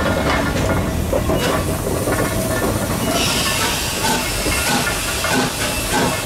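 Small steam tank locomotive DSB F 441 moving slowly past, hissing steam with soft, slow exhaust chuffs; the hiss grows stronger about three seconds in.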